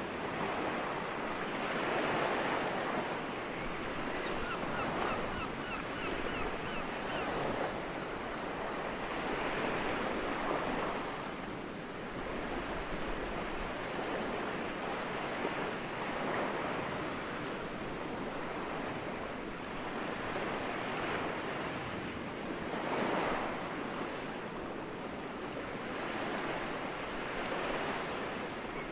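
Soft sea waves coming ashore, breaking and washing up the beach in swells every few seconds.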